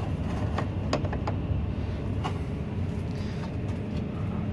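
A few light clicks and taps of plastic clamp pieces being handled on a water filter housing, over a steady low rumble.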